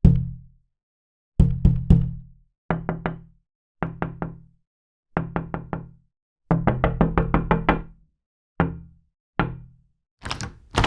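Knocking on a door in separate bouts: a single knock, three sets of three knocks, a set of four, a fast run of about nine, then two lone knocks. Near the end comes a sharper, brighter double knock.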